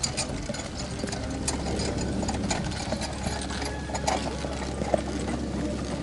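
A pair of driving horses pulling a four-wheeled carriage on sand: irregular hoofbeats mixed with the clicking rattle of the carriage and harness, over a steady low hum.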